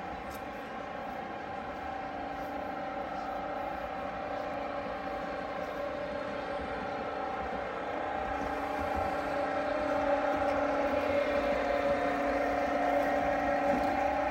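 Model trains running on a large layout: a steady, engine-like drone that grows louder in the second half as the trains draw nearer.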